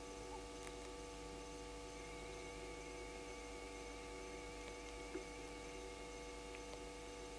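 A faint steady hum made of several held tones. A faint, high, wavering tone joins in about two seconds in.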